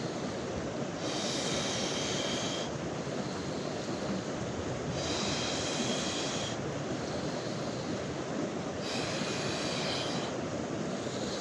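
A person breathing slowly and deliberately in cold water, with a hissing, slightly whistling breath about every four seconds, three times. Under it runs a steady rushing noise of surf or wind.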